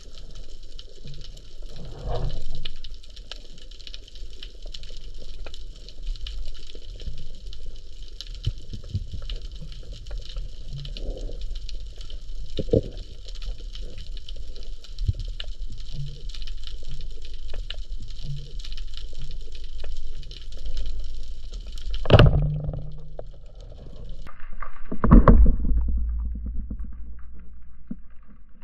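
Underwater ambience picked up by a camera mounted on a speargun: a steady high hiss over low, rumbling water noise, with scattered clicks. About 22 seconds in there is a sharp knock, and a few seconds later a louder stretch of low rumbling.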